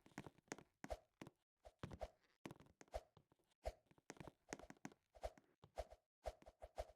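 Faint, irregular small clicks and taps, a few a second.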